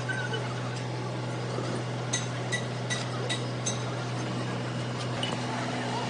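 Five light, ringing metal-on-metal taps about 0.4 s apart, like a hammer tapping steel, over a steady low electrical hum.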